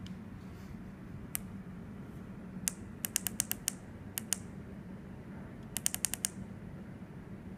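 Sharp clicks of a small tactile push-button switch pressed rapidly: a single click, then quick runs of about five or six presses, the rapid presses used to lock and unlock a YiHi SX350 vape chip. A faint steady hum lies underneath.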